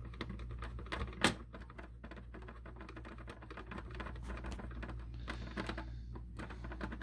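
Small clicks and ticks of a screwdriver and screw working into the plastic body of a model boxcar as it is screwed together, with one sharp click about a second in.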